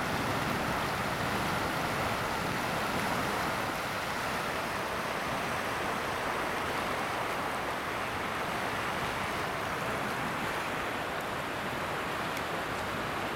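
Steady rush of river water flowing over a shallow, pebbly riverbed and small rapids.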